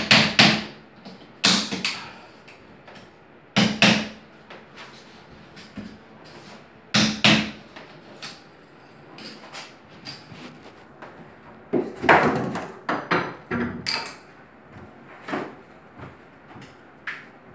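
Sharp knocks and clatters of hard tools and objects against marble, a few in quick succession, then a pause, then more.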